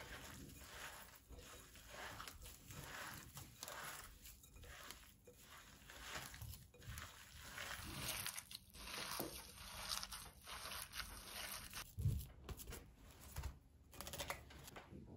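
Hands kneading a moist meatball mixture in a glass bowl, a soft squishing pulse about every second. In the second half, plastic cling film is pulled from the roll and stretched over the bowl, crinkling and tearing.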